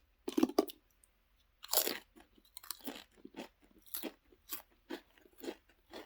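Lay's Stax Xtra Flamin' Hot potato crisps being bitten and chewed: a few loud crunching bites, then steady crunchy chewing at about two crunches a second.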